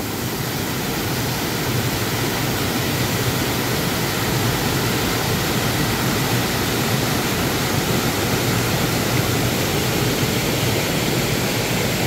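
A small waterfall, about 2 to 3 m high, rushing steadily over rocks with a heavy flow of water.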